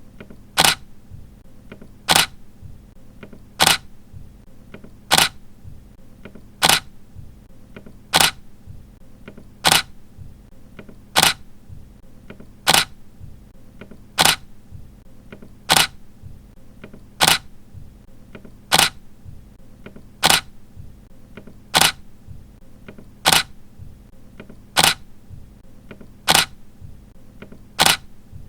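Camera shutter firing again and again, one sharp click about every second and a half at an even pace.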